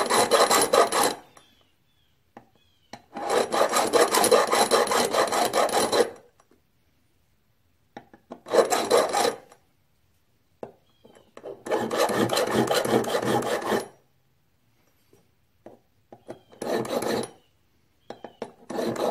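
A bastard file scraping across the edge of a metal connecting rod and its cap, cutting matching V-notch marks across the joint so the cap goes back on the same way. The filing comes in six bursts of quick strokes, each one to three seconds long, with short pauses between.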